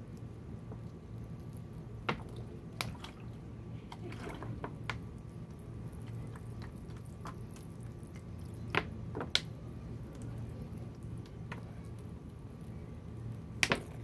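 Water trickling from an upturned plastic bottle onto compost in small terracotta pots, with drips and a few sharp clicks scattered through.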